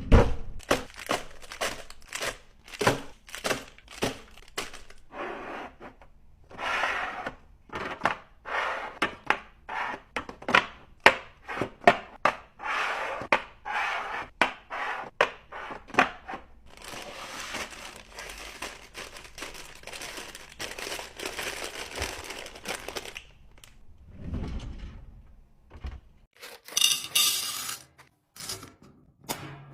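Hands restocking food: packaging crinkling and tearing, and containers and packets set down with many sharp clicks and thunks. Several seconds of steady noise come past the middle.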